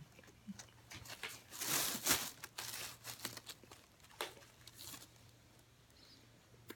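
A plastic bag crinkling and rustling as hands dig through it for baked cornstarch chunks, in short irregular bursts, the loudest about two seconds in.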